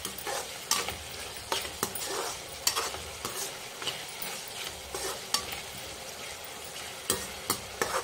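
Minced meat sizzling as it fries in its own released water in a pan, stirred with a metal spatula that scrapes and taps against the pan many times at an uneven pace.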